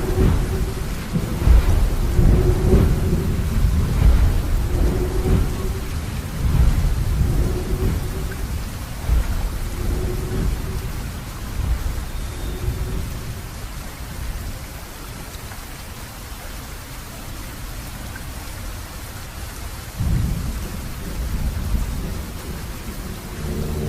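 Thunderstorm sound effect: rolling thunder rumbles over steady rain. The thunder is loudest in the first half, dies down through the middle, and rumbles again near the end, with a faint short low tone repeating about every two and a half seconds early on.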